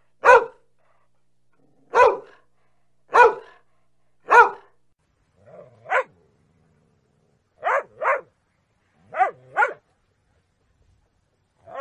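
A dog barking: four single barks about a second apart, a softer bark, then two quick double barks.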